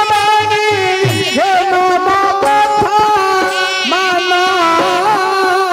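Traditional Indian folk-theatre music: an ornamented melody that bends and glides above a held note, with a drum beating at a regular pace.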